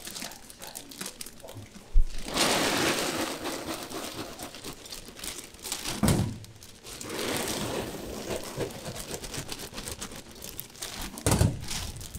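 Roasted peanut halves being tipped from a dish into a clear plastic bag: the bag crinkles and the peanuts rattle in long rustling stretches, broken by a few sharp knocks.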